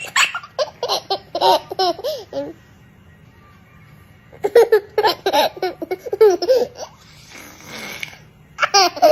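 High-pitched laughter in three runs of quick bursts: one at the start, a longer one in the middle and a short one near the end. A brief breathy hiss comes between the second and third runs.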